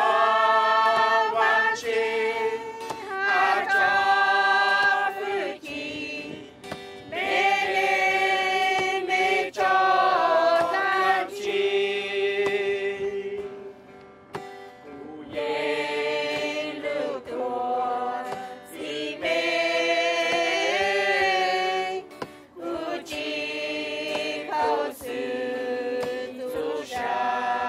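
A worship hymn sung by a group of voices, in phrases of long held notes with short breaks between them.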